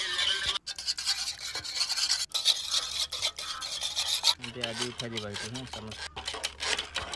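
Scratchy rasping and rubbing, like something being scraped, that breaks off abruptly twice. A short low voice-like sound comes about two-thirds of the way in, then a run of sharp clicks.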